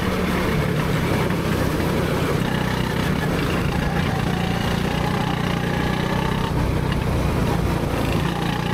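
Go-kart engine running steadily under way, heard from the driver's seat, with a constant low hum and little change in pitch.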